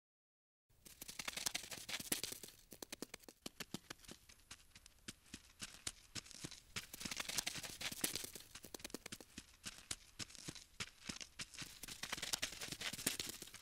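Crawling-insect scurrying sound effect: a dense run of rapid dry clicks and scratches. It starts just under a second in and swells and fades in waves.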